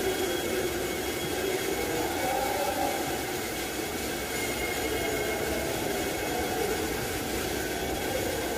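Steady mechanical whirring and hiss of body-shop equipment running without a break.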